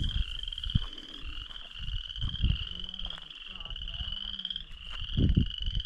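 A chorus of frogs trilling steadily from a pond, a high, fast-pulsing trill that is really loud. A few low rumbling thumps sound underneath, the strongest about five seconds in.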